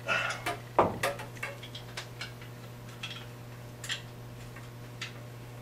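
Metal hand tool and fitting clicking and knocking as a fitting is lined up and tightened on nylon fuel-line tubing. There is a quick run of clicks and one louder knock in the first second and a half, then sparse single ticks.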